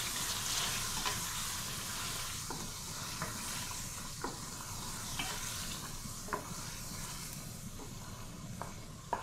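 Chicken pieces sizzling as they fry in oil and masala in an aluminium pot, stirred with a wooden spoon, with occasional light knocks of the spoon against the pot.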